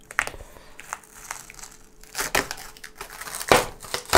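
Paper and adhesive tape wrapped round a wooden template strip being peeled and pulled away from glued ballast by hand, crinkling and crackling in irregular spells, loudest about three and a half seconds in and again at the end.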